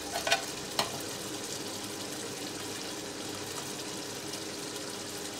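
Chicken curry simmering in a pot, a steady bubbling hiss, with a few light knocks in the first second.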